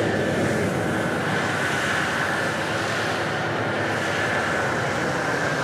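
Old cargo truck's engine running in low gear as it crawls along a dirt road: a steady drone with a faint, steady high whine over it.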